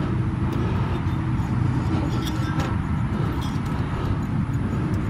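Steady low mechanical hum, with a few light metallic clicks of a wrench on the serpentine belt tensioner.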